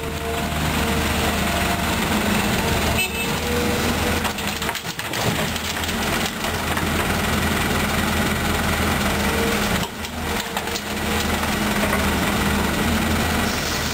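Volvo EC210B hydraulic excavator's diesel engine running under working load, a steady drone, as the machine digs and swings dirt to a dump truck. The noise dips briefly a few times.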